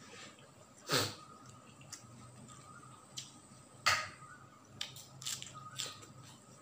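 Close-up eating sounds of a man eating rice and grilled fish by hand: wet mouth smacks and chewing, with two louder smacks about one and four seconds in and a few softer clicks near the end. A faint low hum runs underneath.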